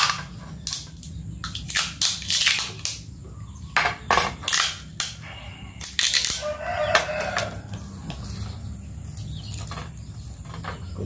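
Clear packing tape being pulled off its roll in short, sharp rips and wound tightly around an aluminium pipe. The rips come in quick irregular bursts, thicker in the first half and fewer toward the end.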